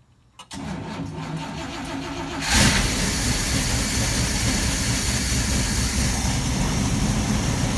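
Dodge V8 engine of a 1965 Clark Cortez motorhome cranked by its starter on a battery charged for only a couple of minutes. After about two seconds of cranking it catches and settles into a steady run.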